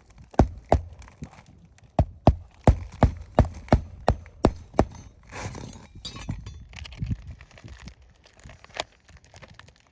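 Hammer striking roofing nails through shingles: two blows, then a quick run of about nine evenly spaced blows, roughly three a second, then some scraping and one last blow near the end.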